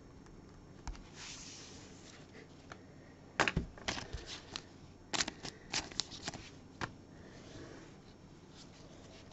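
Trading cards being handled on a table: a brief soft brushing, then a cluster of sharp taps and clicks from about three and a half to seven seconds in, the first the loudest.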